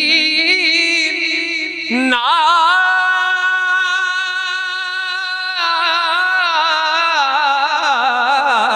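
A man singing lines of an Urdu naat unaccompanied, drawing the words out into long wavering held notes. He breaks off briefly about two seconds in, then holds a long steady note before the melody moves on.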